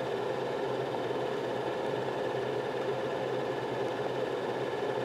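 Steady machine hum with a fan-like hiss and a faint whine in it, unchanging throughout.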